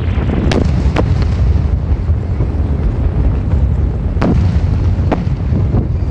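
Fireworks shells bursting in a steady low rumble, with four sharp cracks: two about half a second apart near the start, and two more about a second apart a little after the middle.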